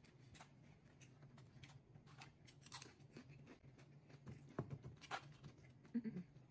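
Near silence, with faint scattered clicks and small crunches of someone eating: a spoon in a bowl and chewing. The clicks are a little more frequent about four to five seconds in.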